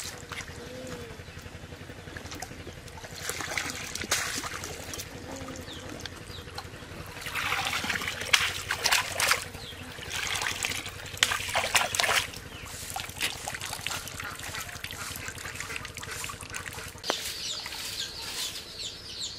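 Pond water splashing and sloshing in bursts as a bamboo basket of potatoes is dipped and swirled in it for washing.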